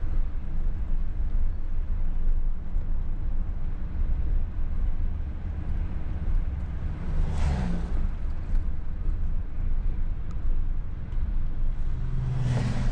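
Steady low rumble of a car driving, heard from inside the cabin. Two other vehicles pass close by with a short whoosh, one about halfway through and one near the end.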